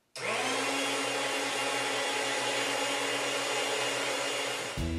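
Chef'sChoice 615 electric food slicer switched on: its motor spins the circular blade up in a moment, then runs with a steady hum and whir. It cuts off near the end.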